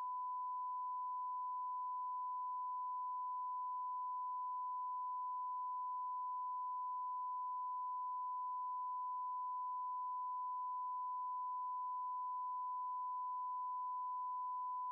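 A single pure electronic tone held at one mid-high pitch, steady and unbroken at an even loudness, like a test-tone beep.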